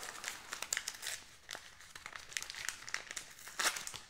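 White packaging wrapping being unwrapped by hand: a string of irregular crinkles and crackles, the loudest a little before the end.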